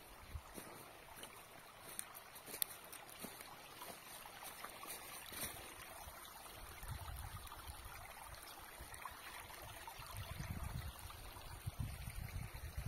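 Shallow rainwater runoff trickling over the ground in a faint, steady wash, the flow swollen after rain. A low rumble builds up in the second half.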